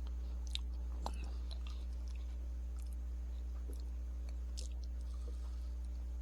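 Quiet chewing and a few small crunches of a hard chocolate candy shell being bitten and eaten, over a steady low hum.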